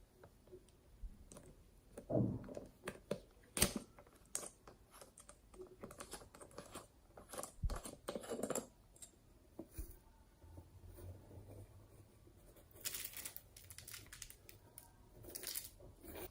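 Irregular small clicks, crackles and rustles of something being handled at close range, coming in short clusters.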